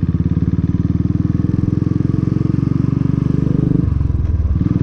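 Motorcycle engine running at a steady, evenly pulsing beat while being ridden, its note changing briefly a little before the end.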